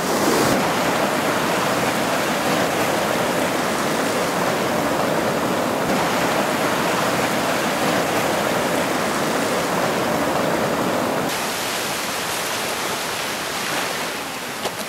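Steady rush of ocean surf washing over the sand at the water's edge, easing slightly about eleven seconds in.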